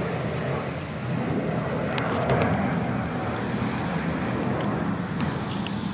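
German Shepherd chewing a raw chicken drumstick, with a few sharp cracks of the bone, over a steady rumble of wind on the microphone.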